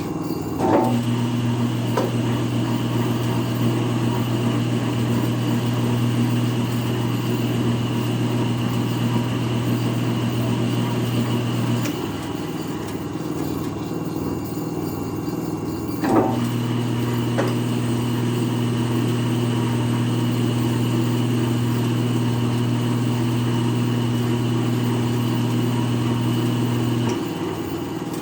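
3 hp electric motor belt-driving a planer, running steadily. A low electrical hum comes on with a sharp click about a second in and cuts out around twelve seconds. It comes on again with another click a few seconds later and cuts out shortly before the end.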